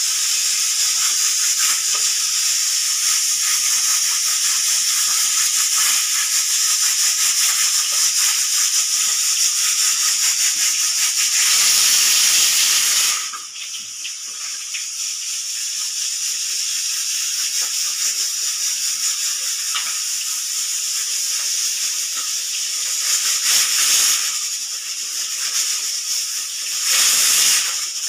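Pressure cooker venting steam through its whistle: a loud, steady hiss that drops off suddenly about halfway, then carries on softer and swells twice near the end.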